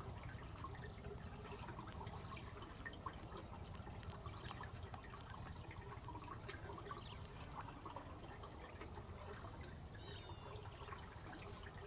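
Faint trickle of flowing river water, with a steady high-pitched insect drone and short high chirps about six seconds in and again near ten seconds.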